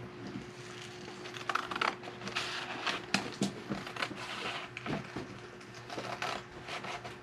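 Scissors snipping through a brown paper-bag template, with paper rustling and irregular handling clicks, over a faint steady hum.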